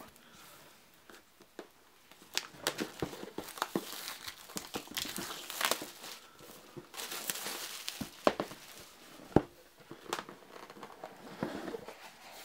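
Plastic shrink-wrap being torn and crumpled off a cardboard board-game box, a run of crinkling with sharp clicks starting about two seconds in.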